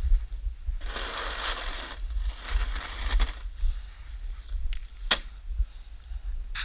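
A snow shovel scrapes twice across snow, each scrape lasting about a second, followed by a sharp click about five seconds in. Wind rumbles on the microphone throughout.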